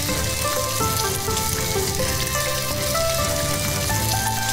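Chicken thigh pieces frying in oil in a frying pan, a steady sizzle, with background music playing a melody over it.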